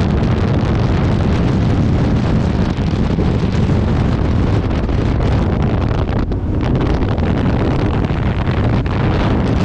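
Strong wind buffeting the microphone: a loud, steady rumbling noise.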